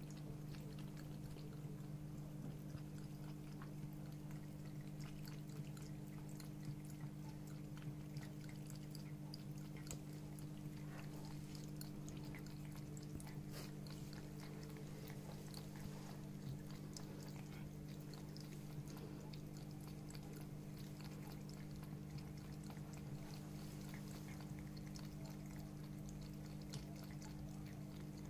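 Cat Mate pet water fountain running: its pump hums steadily and water trickles down the spout. A cat laps at the stream with faint scattered clicks.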